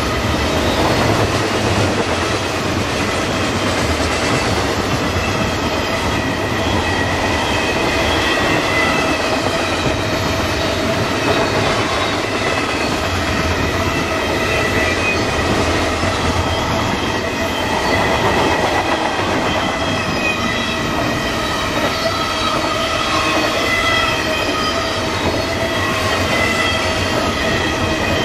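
Double-stack container train's loaded well cars rolling past: a steady rumble and clatter of steel wheels on the rails, with thin, wavering high-pitched whining tones running through it.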